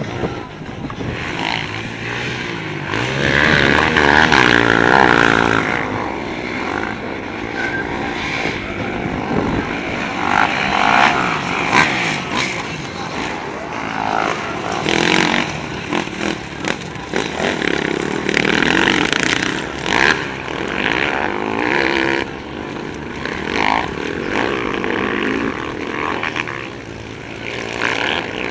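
Motocross dirt bike engines revving hard as riders race past, their pitch rising and falling with the throttle through gear changes. Several bikes overlap and come and go, loudest about four seconds in.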